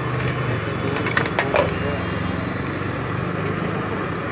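Busy street-food stall ambience: a steady hum of background chatter and traffic, with a few sharp clicks or knocks a little over a second in.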